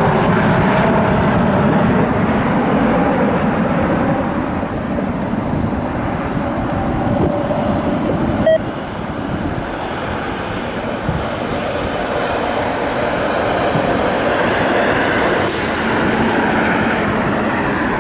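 Jet aircraft engines running with a steady rumble and a faint whine that falls in pitch over the first few seconds as the jet passes, with a single sharp click about halfway through.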